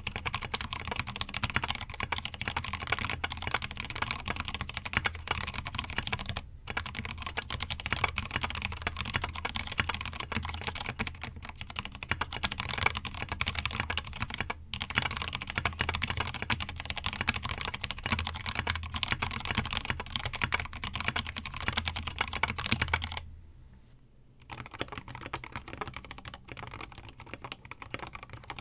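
Fast typing on a mechanical keyboard fitted with Gateron Milky Yellow Cap linear switches, stock and not yet broken in, giving a steady stream of keystroke clacks. About 23 seconds in it stops briefly, then typing resumes more quietly on lubed Gateron Yellow linear switches.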